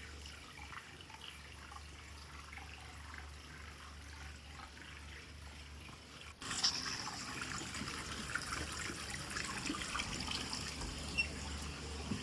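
Water from a tap, trickling at first and then running more strongly from about six seconds in, over a low steady hum.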